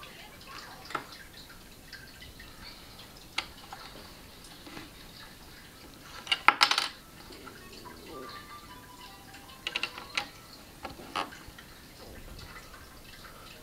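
Plastic LEGO bricks clicking and clattering as they are handled and fitted onto a model. There are scattered single clicks, with a short burst of louder rattling about six and a half seconds in, and a few more clicks near the end.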